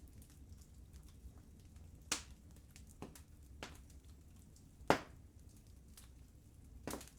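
Wood fire crackling: many small ticks throughout and about five louder pops, the loudest about five seconds in, over a low steady rumble.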